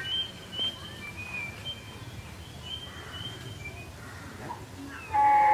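Small birds chirping with short high calls. About five seconds in, a cow starts mooing loudly.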